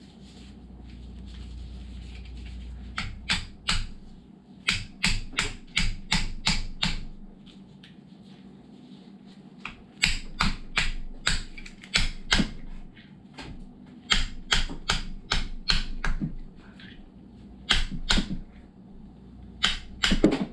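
Runs of sharp taps, three to eight strikes at a time at about three to four a second, with short pauses between runs: a hammer knocking out a stuck rack-and-pinion mounting bushing.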